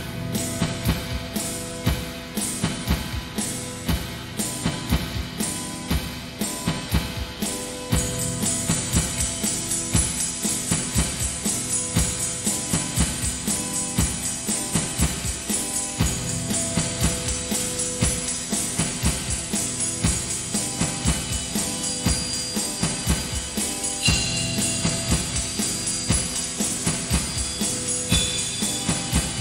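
Live band music: a steady drum beat under held pitched notes, with a dense shimmering cymbal or tambourine layer joining about eight seconds in.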